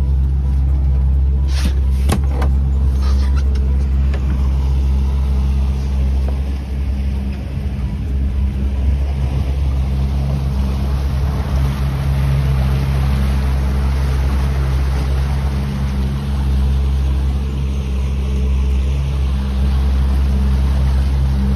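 A small fishing boat's motor running steadily at low speed, with a few sharp clicks or knocks in the first few seconds.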